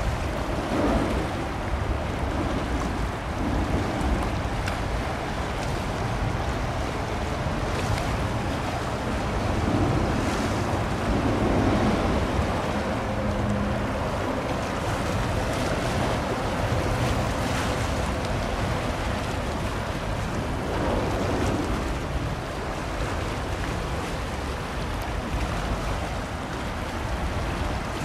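Wind buffeting the microphone over a steady wash of water, with a faint steady hum in the middle stretch.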